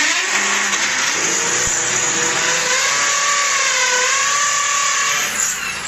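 Power drill running steadily for about six seconds, its motor whine sagging slightly in pitch a little after the middle as it bears down, then stopping near the end.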